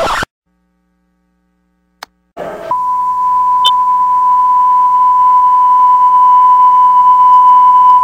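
Digital alarm clock sounding one long, unbroken high beep that starts a little under three seconds in and slowly grows louder. Before it there is a brief burst of noise, then a couple of seconds of silence.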